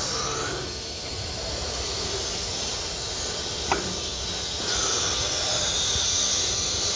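Compressed air hissing steadily from a CNC router's automatic tool-measuring cycle, blowing the tool clean before it is measured. The hiss swells about five seconds in, and there is a single sharp click a little before that.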